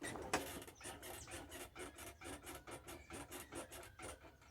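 Repeated scratchy creaking from a Honda CG motorcycle with its engine off, as the rider's weight works on it, about four or five short strokes a second. It is a strange noise the owner says was not there the day before, and he suspects damage from jumps and potholes.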